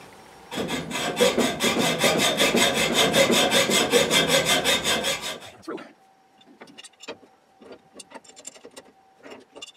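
Hacksaw cutting through an iron gas pipe in quick, even back-and-forth strokes that stop about five and a half seconds in. A few light clicks and taps follow.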